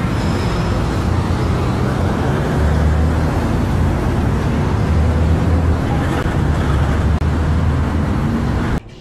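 Steady traffic noise from a busy highway: a loud low rumble of passing vehicles under a constant hiss. It cuts off abruptly near the end.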